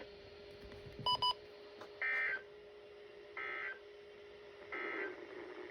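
Two quick electronic beeps, then three short buzzing data bursts about 1.4 seconds apart. These are the EAS SAME end-of-message tones that close the weather radio warning, heard over a faint steady hum.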